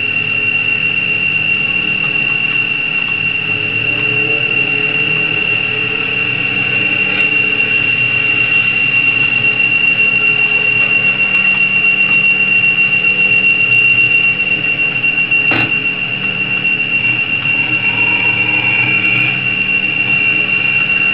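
A steady high-pitched whine over a background of hiss, with one sharp click about fifteen seconds in.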